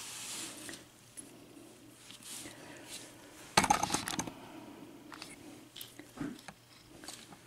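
Small metallic clicks and taps of a pin-tumbler lock cylinder's plug and pins being handled as the bottom pins are taken out, with a quick run of clicks about three and a half seconds in.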